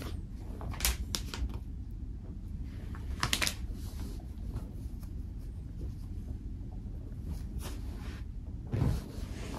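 Scattered light clicks and rustles of something being handled, in a few short clusters, with a heavier soft thump near the end, over a steady low hum.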